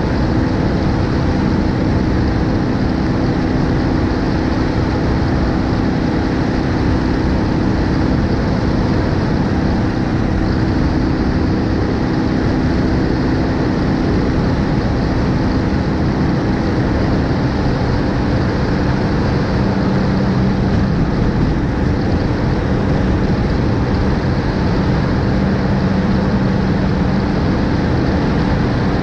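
BMW R1250GS Adventure's boxer-twin engine running at road speed, mixed with wind rush and tyre noise picked up by a camera on the front of the bike. The engine note drops to a lower pitch a little over halfway through.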